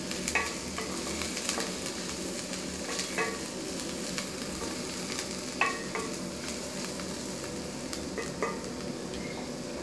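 Onions and mustard seeds sizzling in hot oil in a stainless steel pot, stirred with a wooden spoon that scrapes and knocks against the pot now and then.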